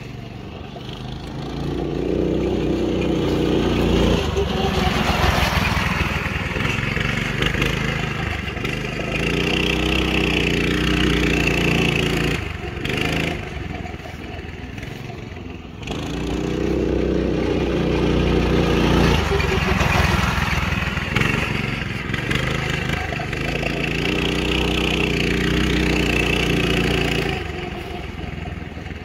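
Small off-road buggy's engine revving up and easing off over and over as it is driven around a dirt track. It is loudest in four stretches of a few seconds each, with quieter dips between as it slows and moves farther off.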